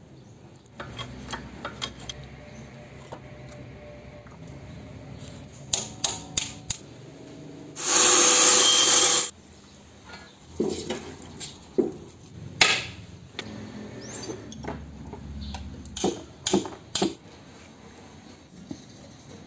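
Metal clinks and knocks of a Nissan Diesel truck differential's drive pinion, bearing and gears being handled and fitted into the carrier. A loud hiss about eight seconds in lasts a second and a half.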